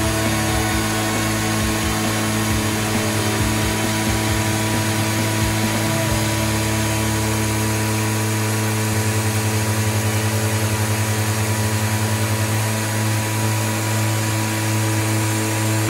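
Spindle of a Denver Quota CNC stone router running a water-cooled diamond tool into a granite slab: a steady machine hum and whine over grinding and spraying hiss. The low hum pulses quickly for a few seconds past the middle.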